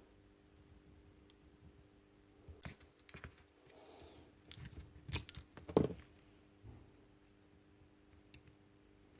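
Faint, irregular small clicks and taps of hand work on a power drill's switch and wiring, clustered through the middle and loudest just before six seconds in.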